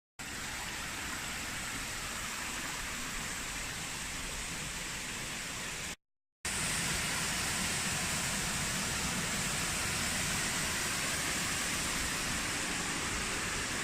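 Steady rush of flowing and falling water from a river and waterfall. It cuts out briefly about six seconds in and comes back louder.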